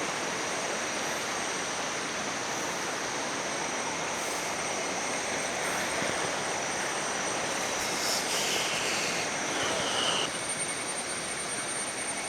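Waterfall stream rushing steadily, an even noise that drops slightly about ten seconds in.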